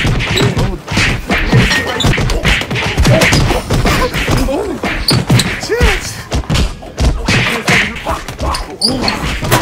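A fast run of thumps and whacks from roughhousing: padded boxing-glove blows, then bulky packs of toilet paper thrown and swung so they hit bodies and shelves. Raised voices come in between the hits.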